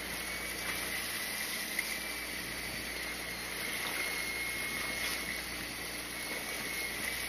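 Steady running noise aboard a fishing boat at sea: engine hum with water washing around the hull and a faint, steady high whine.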